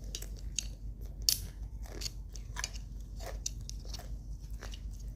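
Crispy fried chicken being bitten and chewed close to the microphone: a run of irregular crunches, the loudest about a second in.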